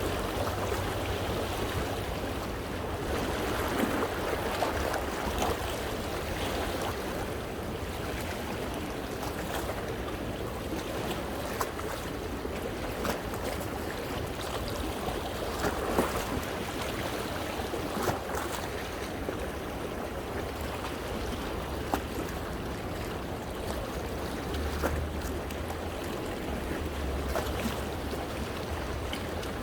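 Small sea waves washing in and out among coastal rocks, the water rushing and gurgling steadily, with brief sharper splashes every few seconds.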